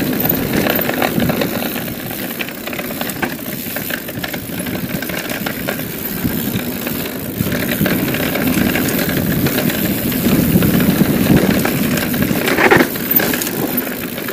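Mountain bike descending a dirt singletrack at high speed: wind rushing over the camera microphone and knobby tyres rolling on dirt, with small rattles from the bike. A louder clatter comes near the end.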